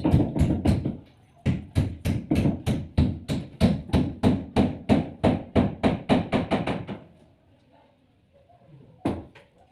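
Quick, steady hammer blows, about four a second, for roughly seven seconds, then a pause and a single further blow near the end.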